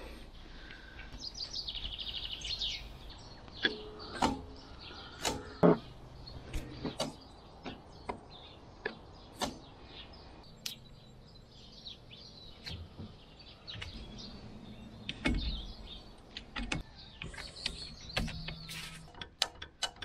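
Grease gun being worked on the grease nipples of the sawmill's shaft bearings: scattered clicks and knocks of metal on metal, with a few short squeaks.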